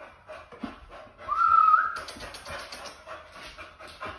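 A bully-breed dog whines once, a high, nearly level note lasting under a second, rising slightly at its end, followed by rapid panting.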